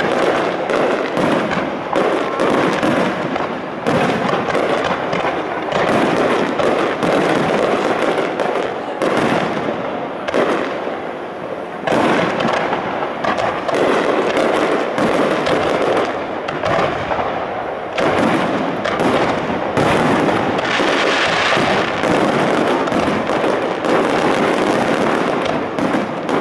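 Aerial firework shells bursting in rapid succession, a dense barrage of bangs following one another with barely a pause.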